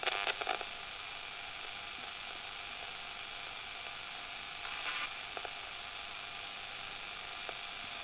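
Ghost box radio hissing with steady static interference, with a short crackle of louder bursts at the start and another about five seconds in, and a few faint clicks.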